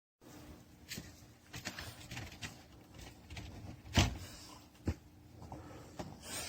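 Plastic flap of a magnetic dog screen door tapping and knocking as a dog pushes at it. There is a sharp knock about four seconds in and another about a second later.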